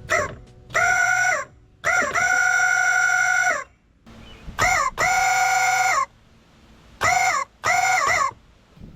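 Rubber-chicken car horn, blown by air from a pump, squawking in about seven shrill honks. Some are brief blips and one is held for nearly two seconds. Each honk opens with a quick wobble in pitch, then holds a steady tone.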